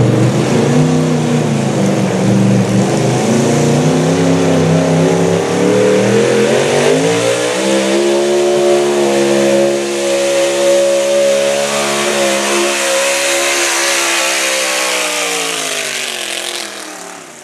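Modified gas-engine pickup truck pulling a weight-transfer sled at full throttle, the engine running hard at high revs. Its pitch climbs about seven seconds in, holds, then falls away near the end as the engine comes off the throttle.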